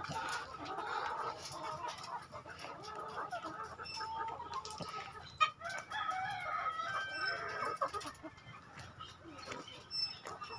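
Flock of caged Lohmann layer hens clucking and calling over one another, with a single sharp knock about five seconds in.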